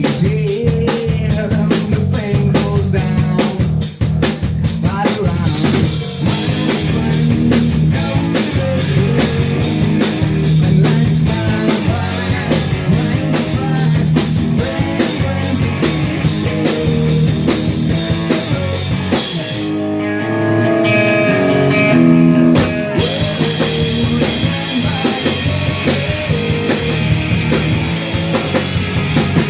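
Live rock band playing loud with distorted guitar, bass and drum kit. About twenty seconds in the drums and cymbals drop out for about three seconds while a run of single notes plays, then the full band comes back in.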